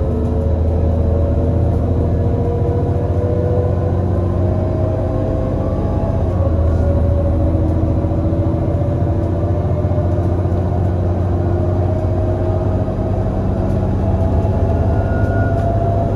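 Irisbus Citelis 18 articulated bus's IVECO Cursor 8 CNG engine and ZF Ecomat 6-speed automatic gearbox accelerating, the pitch rising steadily, with an upshift about six seconds in and another at the very end.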